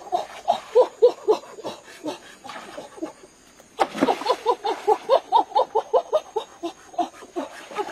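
A person laughing in quick repeated bursts, with a sharp splash of water about four seconds in.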